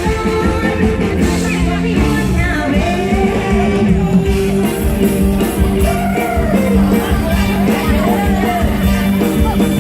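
Live Isan (northeastern Thai) band music with a singer: a sung melody over a steady beat.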